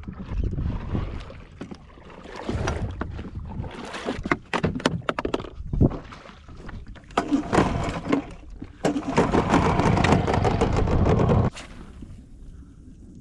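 Wind buffeting the microphone and water slapping against a small boat's hull, with scattered knocks. A louder, steady rushing stretch comes later and cuts off abruptly about eleven and a half seconds in.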